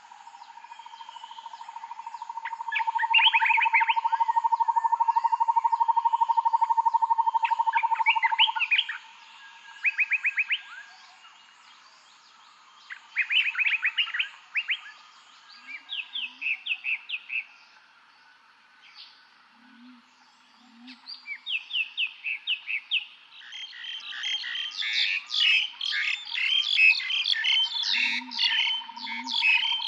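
Forest birdsong: short repeated songbird phrases, building into a dense overlapping chorus in the last few seconds. Under them, a long, even, rapid trill at one pitch runs for the first eight seconds or so and starts again near the end, and a few faint low calls come in pairs.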